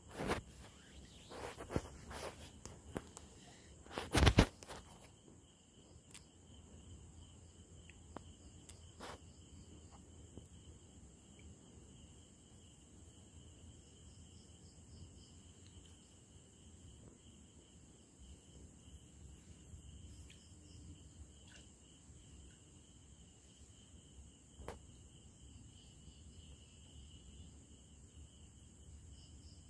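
Night insects, crickets, chirping in a steady pulsing chorus. A few sharp knocks come in the first few seconds, the loudest about four seconds in.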